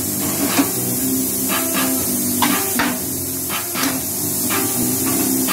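Manual steel brick press being worked by its hand lever, giving a run of irregular metal clanks and knocks from the lever, ram and mould parts. Steady background music plays underneath.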